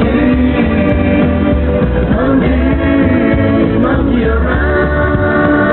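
Music: an instrumental passage of a song, with pitched instrument lines over a pulsing bass.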